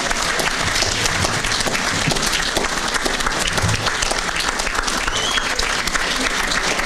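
Audience applauding steadily in a function room.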